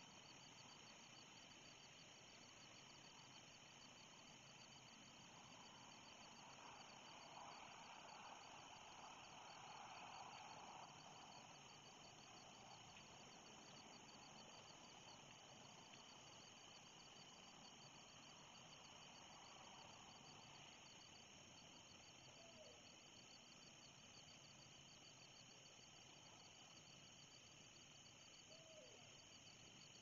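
Faint evening insect chorus: a steady, rapidly pulsing high trill that runs on without a break. A faint wash of noise swells and fades about eight to eleven seconds in, and two brief falling chirps come near the end.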